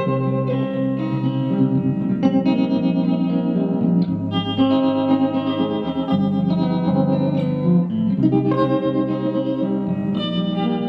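Electric guitar played through a Vox AC10C1 valve combo amp, a run of ringing chords and picked notes that change every couple of seconds, with an effect on the tone.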